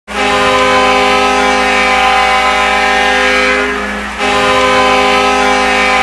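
Rimouski Oceanic's arena goal horn blowing a loud chord of several steady tones: one long blast that fades out shortly before four seconds in, then a second blast starting just after four seconds in.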